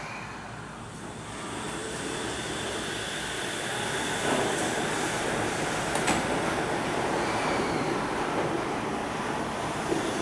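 Shonan Monorail suspended monorail train pulling out of the station, its running noise building steadily as it accelerates, with two sharp clicks about four and six seconds in.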